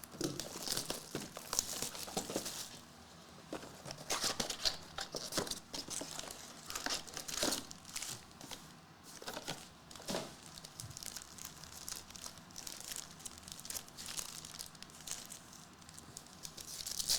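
Plastic trading-card wrappers being torn open and crumpled by hand, irregular crinkling with sharper tearing bursts, as a box of 2023 Panini Select UFC cards and its packs are unwrapped.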